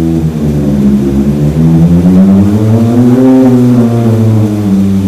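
Pipe organ playing slow, sustained chords low in its range, the notes stepping upward and then back down about halfway through.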